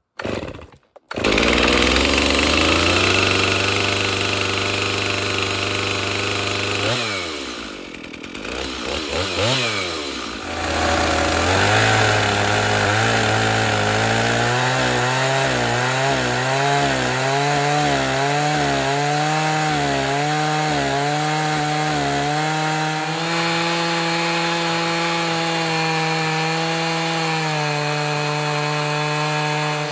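Chainsaw on an Alaskan chainsaw mill starting up and running at high revs. Its engine speed dips and recovers twice a few seconds in, then it holds a steady, slightly wavering pitch under load as it rips along the log.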